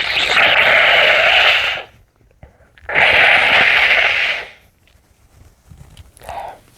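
A man's two muffled sneezes, each a loud, drawn-out burst of breath lasting under two seconds, about three seconds apart, then a brief faint sound near the end.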